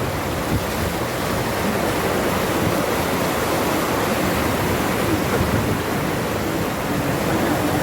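Steady rushing of fast-flowing water, an even noise with no breaks.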